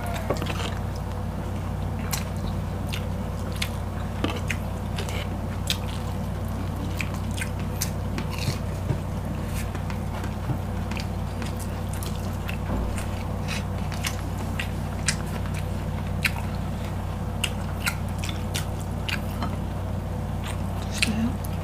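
Close-miked eating: crisp bites into breaded fried chicken fillet and chewing, heard as many short sharp crackles scattered through, over a steady low hum.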